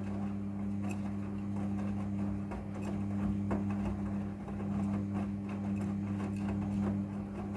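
Front-loading washing machine running: a steady low hum with light scattered clicks and knocks.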